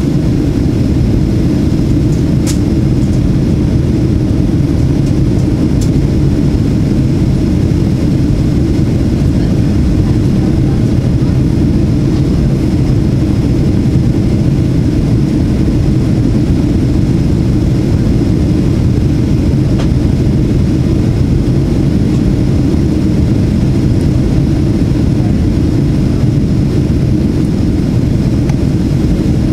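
Steady cabin noise inside a Boeing 737-800 on approach: a low, even rumble of airflow and the CFM56-7B jet engines, with a faint high tone above it. Two brief faint clicks come a few seconds in.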